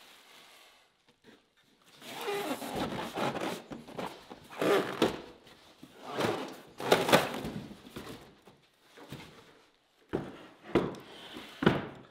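Cardboard and foam packing scrape and rustle in uneven bursts, starting about two seconds in, as a Ridgid sliding miter saw is worked out of its box. Near the end come several sudden thunks as the saw is set down on a wooden workbench.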